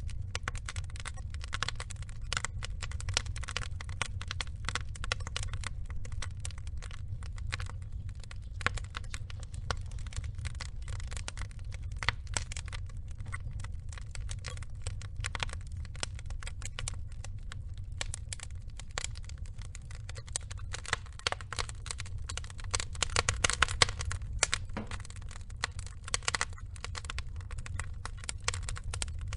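Burning logs crackling and popping: a dense, irregular stream of sharp crackles over a low steady rumble. A busier run of louder pops comes about three-quarters of the way through.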